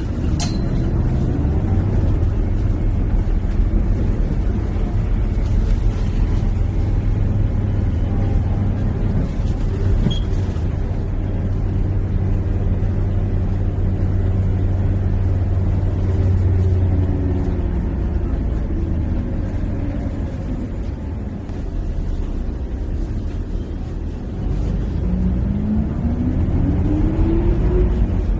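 City bus heard from inside the cabin: a steady low engine and road rumble as it drives, with the engine note rising over the last few seconds as the bus accelerates.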